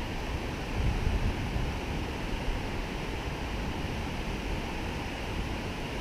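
Steady rush of water pouring over a low dam's spillway and running past, with wind buffeting the microphone, heaviest about a second in.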